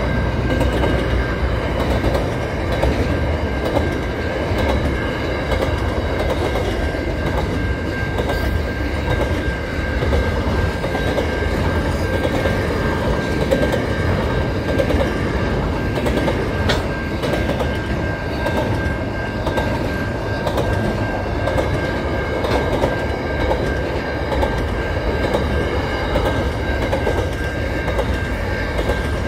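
Pacific National container freight train passing: a steady rumble and clatter of wagons and wheels on the rails, with a steady high tone over it.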